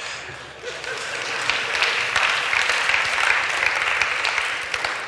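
A large audience applauding in a hall: the clapping builds over the first two seconds, holds, and tapers off near the end.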